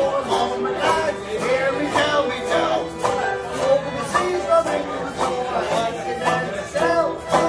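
Fiddle, banjo and acoustic guitar playing a folk tune together over a steady strummed rhythm.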